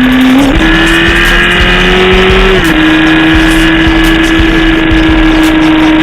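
Motorcycle engine running at a steady cruising speed, its pitch rising a little about half a second in and dropping a little partway through.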